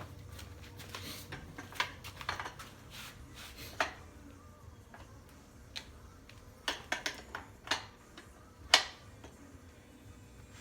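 Steel wrenches clinking and tapping as they are handled and set onto a bicycle's axle nuts: a scattered run of light metallic clicks and knocks, with one sharper knock near the end.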